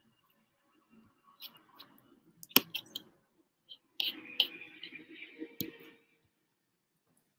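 Scattered sharp clicks, the loudest about two and a half seconds in, over soft rustling, like handling or desk noise picked up by a video-call microphone; it dies away about six seconds in.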